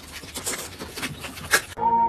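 A plastic snack packet crinkling and rustling as it is held up to a dog's cage, with a sharp click about a second and a half in. Music starts suddenly near the end.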